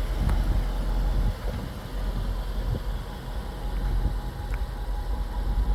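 Jaguar XKR's supercharged 5.0-litre V8 idling with a steady low rumble.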